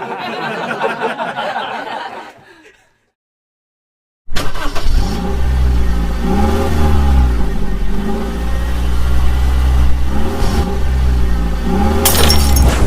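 After fading background noise and a short gap of silence, a heavy engine starts running loud and low, its pitch swelling up and down again and again as it revs. A sudden clattering crash comes near the end.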